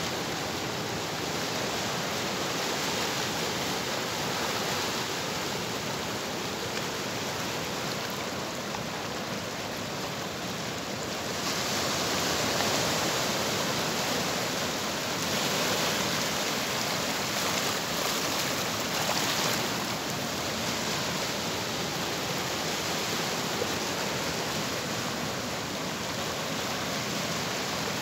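Small sea waves washing in and breaking along the shore: a steady rush of surf that swells louder a few times midway.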